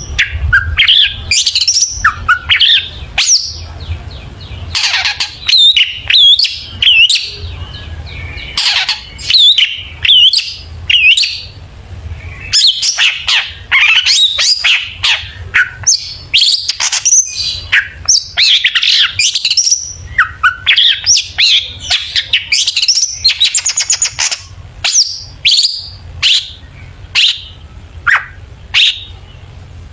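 Long-tailed shrike (cendet) singing without pause: a fast, varied run of chirps, trills and harsh notes, full of calls mimicked from other birds.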